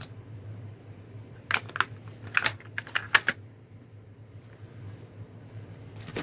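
A quick run of about eight sharp clicks and rattles, bunched into a second and a half, from a folding knife's retail packaging being handled and opened. A steady low hum runs underneath.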